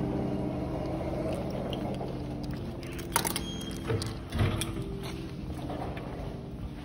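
Steady mechanical hum of indoor shop ambience, with a few short knocks and clicks, the sharpest about three seconds in and another about four and a half seconds in.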